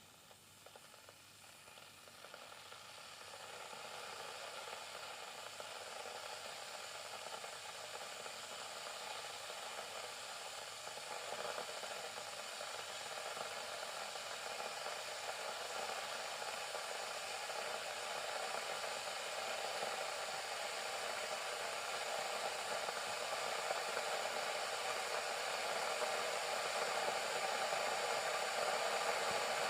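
Kettle heating water, its hiss growing steadily louder as the water nears the boil.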